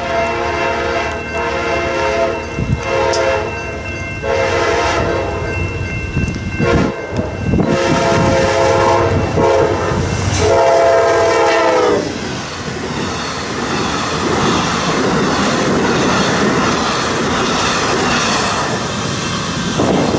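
Amtrak passenger train, a GE P42 diesel locomotive leading bilevel Superliner cars, sounding its air horn in a series of long blasts as it approaches a grade crossing. The horn stops about twelve seconds in, and the train passes close by with a steady rumble and clickety-clack of wheels over the rails.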